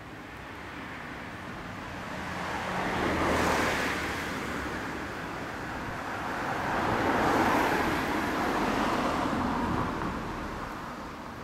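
Passing road traffic: two vehicles go by, one swelling and fading a few seconds in, and another after the middle that lingers longer before dying away.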